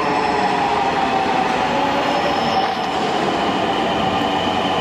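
Metro train running: a steady, loud rush of wheel and track noise with several held whining tones that drift slightly in pitch.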